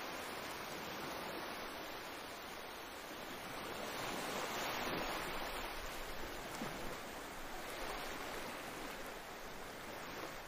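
Choppy water splashing and lapping against a small boat's hull as a steady wash.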